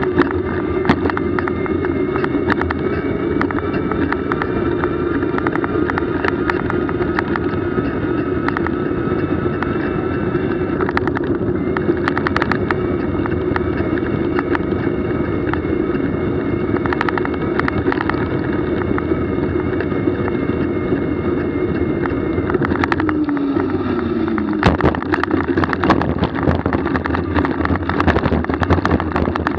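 A vehicle's motor running at a steady pitch while on the move, with scattered clicks and rattles. About 23 seconds in, a tone slides down in pitch, followed by a sharp knock.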